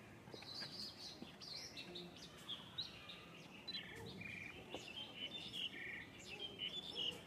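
Small birds chirping and twittering, many quick high calls overlapping, with a short buzzy note now and then.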